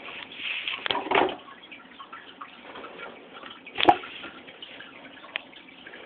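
Aquarium water trickling and dripping steadily, with a few sharper drips or splashes, the loudest about a second in and just before four seconds in.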